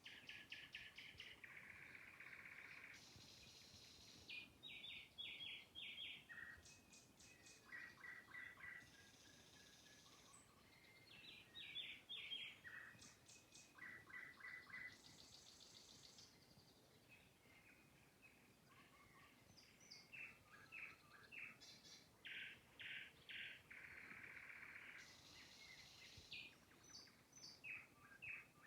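Nightingale singing, faint: phrases of rapidly repeated notes, clear whistles and buzzy trills, with short pauses between phrases.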